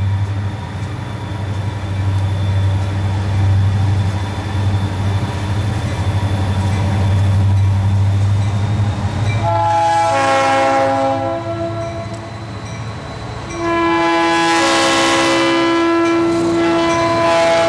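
Diesel freight locomotive approaching with a steady low engine rumble, then sounding its air horn, several notes at once: one blast about halfway through and a second, louder long blast starting near the end, the warning for a grade crossing.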